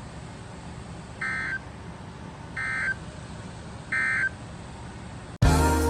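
Emergency Alert System end-of-message data bursts: three short, identical buzzy digital chirps about a second and a half apart over a faint hiss. They mark the end of the severe thunderstorm warning. Music starts abruptly near the end.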